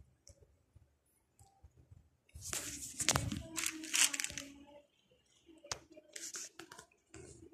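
Scuffling and rustling of two cats play-fighting on a floor and cushion: a few faint clicks, then a loud rustling burst from about two and a half seconds to nearly five seconds in, and shorter bursts of rustling near the end.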